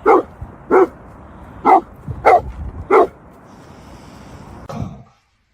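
A dog barking: five loud, short barks in about three seconds, then a weaker one near the end.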